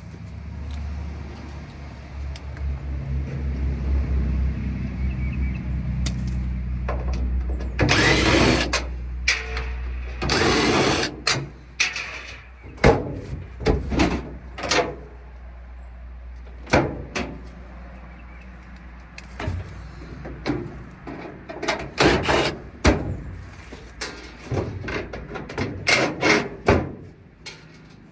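A steady low hum for about the first eight seconds, then scraping and a string of sharp knocks and bangs from scrap dryer cabinets being handled and opened.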